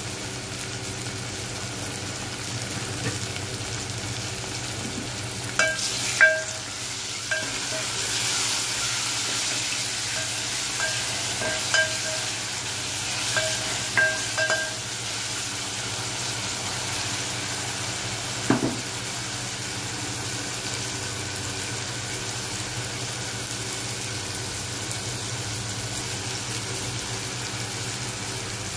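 Onion and tomato sizzling in hot oil in an aluminium pot while being stirred with a wooden spatula. Between about six and fifteen seconds the spatula knocks against the pot, giving a run of short ringing clinks, with a single knock a few seconds later.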